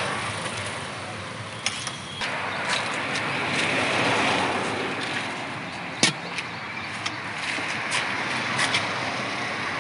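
Steady street traffic noise that swells about four seconds in, with a few sharp clinks of steel ladles and lids on steel food containers, the loudest about six seconds in.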